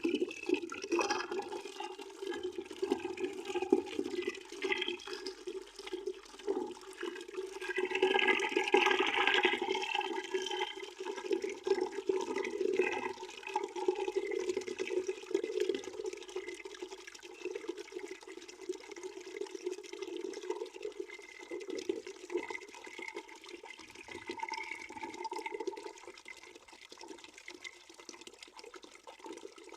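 Water running from a tap into a partly filled bucket, a steady splashing, gurgling pour. It gets louder for a couple of seconds around a third of the way in and turns quieter near the end.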